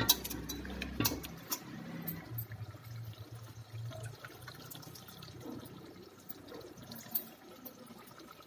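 Wet squelching and trickling as a hand squeezes soaked tamarind pulp in a steel bowl of water and lets the tamarind water run into a pot of vegetables. A few light clinks of steel sound, mostly near the start, and the sound grows gradually softer.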